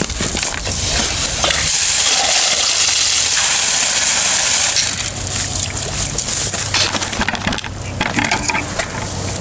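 Water running in a steady hissing stream into a glass for about three seconds, then stopping and giving way to scattered clicks and knocks as the glass is handled.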